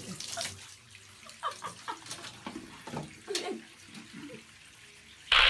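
Water running from a bathtub tap into the tub, with a few faint knocks and short pitched sounds over it. Just before the end a sudden loud burst of noise cuts in.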